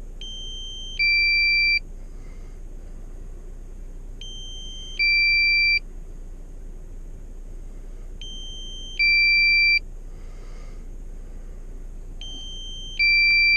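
Drone flight-control warning beep: a two-note electronic alert, a higher tone then a louder lower tone, each under a second, repeating every four seconds, four times, over a steady low hum.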